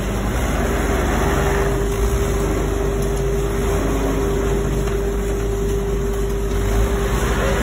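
Compact front-loader tractor's engine running steadily under load as the loader lifts and dumps a bucket of sawdust, with a steady high-pitched hum over it.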